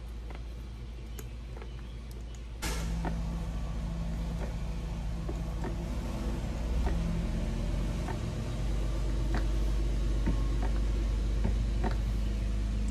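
Hand pump working gear lube up a hose into the lower unit of a Mercury four-stroke outboard, with faint clicks of the pump strokes. About three seconds in, a steady low mechanical hum starts and becomes the loudest sound.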